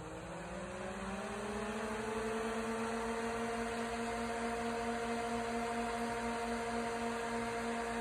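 Two 120-volt axial fans of a homemade register booster fan spinning up, their whir rising in pitch for about the first two seconds, then running steadily at full speed with an even hum.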